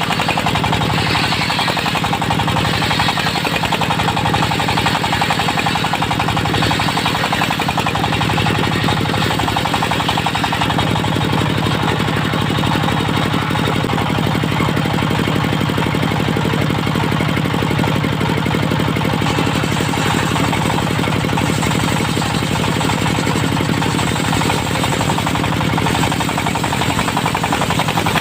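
Diesel engine of a portable circular-saw sawmill running steadily with a rapid, even pulsing beat.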